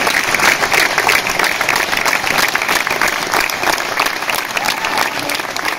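Audience applauding: dense, continuous clapping from a large crowd, easing slightly toward the end.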